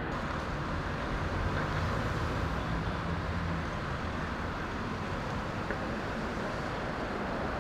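Steady road traffic noise, with a low engine hum that is stronger for the first three seconds or so.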